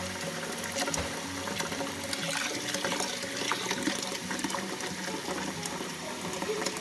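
Water running from a kitchen tap into a pot as it fills, a steady splashing rush.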